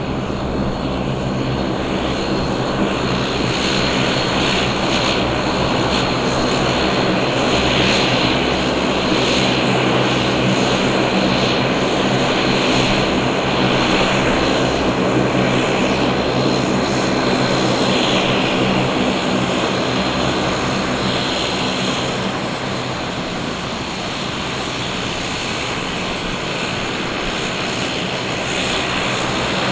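Bombardier DHC-8-402 Q400's two Pratt & Whitney Canada PW150A turboprops running at taxi power: a steady propeller drone with a high, even turbine whine. It eases slightly about three-quarters of the way through, then rises again near the end.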